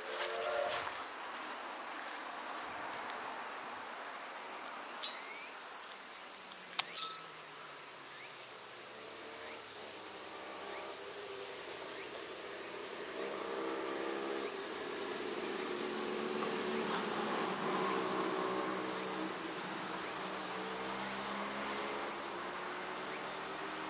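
Steady high-pitched chorus of insects calling. A fainter, lower wavering hum joins underneath from about eight seconds in.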